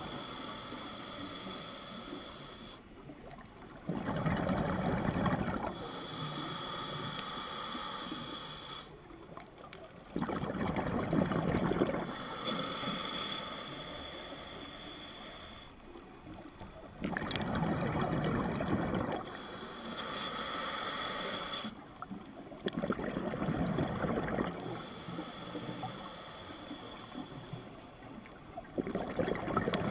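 Scuba diver breathing through a regulator underwater: a hissing inhale, a short pause, then a loud burst of bubbling exhaust on the exhale, repeating regularly about every six seconds.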